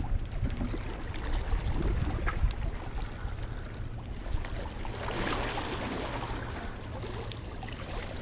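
Sea water washing against rocks with wind on the microphone, and a hooked fish splashing at the surface about five seconds in.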